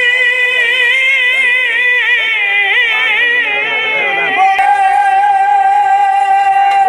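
Live Bengali folk music from a stage performance: sustained notes that waver in pitch, then one long steady held note from about four seconds in.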